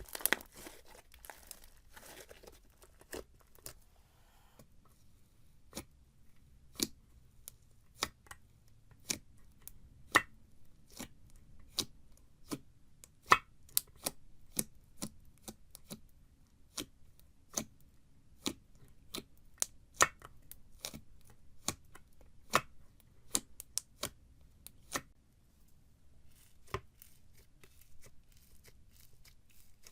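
Slime being handled: a crackly stretch at first, then a long run of sharp separate pops, about one to two a second, which stop a few seconds before the end.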